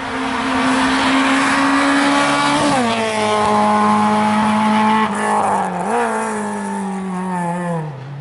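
Peugeot 106 hill-climb car's engine at racing speed, held high and then dropping sharply in pitch about three seconds in. The pitch holds steady, rises again briefly near six seconds and falls away toward the end.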